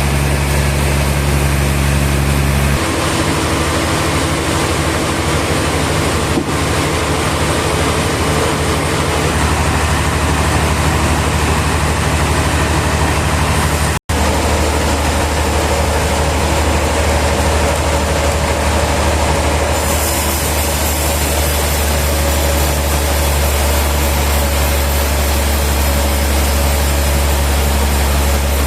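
Heavy sawmill machinery running steadily with a loud, low engine drone. It cuts out for an instant about halfway through, and its character changes abruptly a few seconds in and again later.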